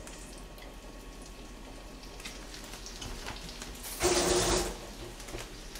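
Faint crackling of anchovies dry-roasting in a pot, with a short burst of running tap water lasting under a second about four seconds in.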